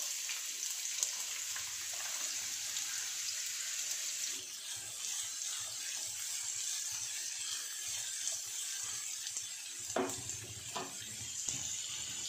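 Sliced onions sizzling in hot oil in a non-stick frying pan, a steady hiss. There are a few short scrapes of a wooden spatula stirring them about ten seconds in.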